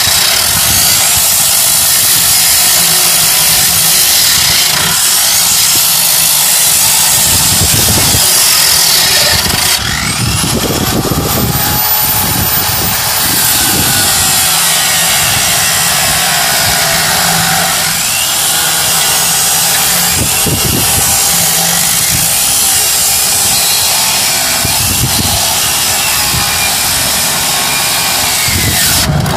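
Handheld power cutting tool running continuously as it cuts through the Land Rover Discovery's steel body, with the pitch dipping and rising again about ten seconds in.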